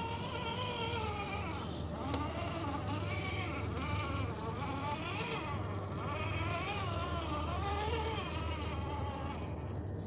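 Axial SCX10 II Deadbolt RC rock crawler's electric motor and drivetrain whining as it crawls over rock, the pitch repeatedly rising and falling with the throttle.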